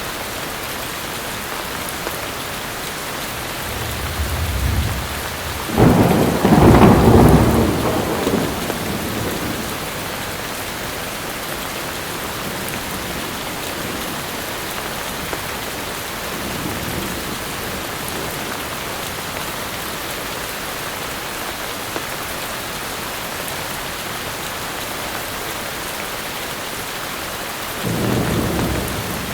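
Steady heavy rain with thunder. A low rumble builds about four seconds in, then a loud clap of thunder rolls on for a few seconds; a fainter rumble follows midway, and another low rumble comes near the end.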